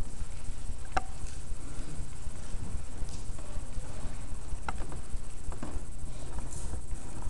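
Room tone with a steady low rumble, broken by a few soft knocks and shuffles: one about a second in and a couple more around five seconds, as people move about.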